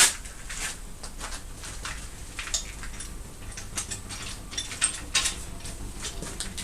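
Handling noise: a sharp click at the start, then a run of small irregular clicks, taps and rustles.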